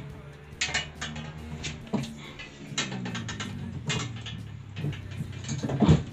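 Metal clicks, knocks and rattling of a child's bicycle being lifted and hung on a wall-mounted bike hook, in irregular clusters, with the loudest knock near the end.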